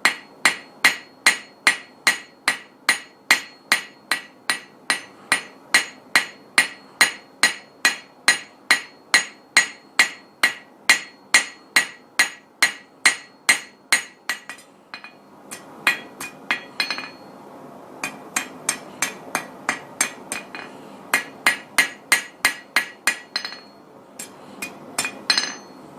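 Blacksmith's hammer striking hot steel on an anvil, about three ringing blows a second, flattening out a forged leaf blank. The blows pause briefly about halfway through, then come again in shorter runs.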